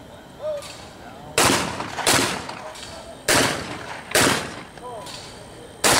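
12-gauge shotgun shots at skeet doubles: two pairs of shots, each pair under a second apart, then a fifth shot near the end. Each shot is loud and sharp, with a short echoing tail.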